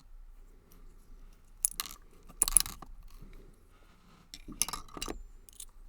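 Small metal lock parts from a brass padlock, its pins and springs being handled, clinking and rattling in a few short bursts of sharp clicks.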